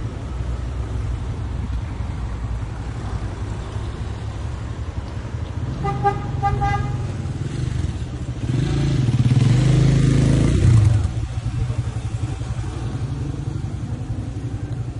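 Street traffic with a steady low rumble. About six seconds in a vehicle horn gives a few short toots, then a motorcycle passes close by from about eight and a half to eleven seconds, the loudest sound, dropping away suddenly.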